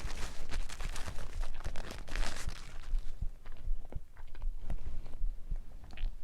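Close-miked chewing of a donut: dense wet crackling clicks for about the first three seconds, then quieter, sparser clicks over low thuds.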